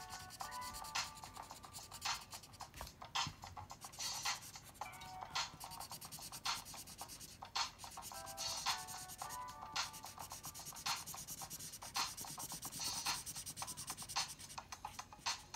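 Background music with a steady beat of about one hit a second and short melodic phrases, over faint scratching of drawing strokes on paper.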